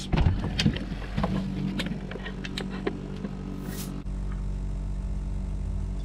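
Handling noise from a portable 12 V fridge/freezer as its padded canvas cover is pulled back and the lid opened: a run of clicks, rubs and knocks, with a short hiss near the end of the handling. A steady low hum runs underneath and is left on its own for the last couple of seconds.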